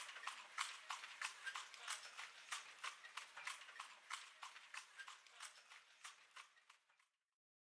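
Hard-soled shoes striking stone steps: a faint, quick series of footsteps climbing, growing fainter and stopping about seven seconds in.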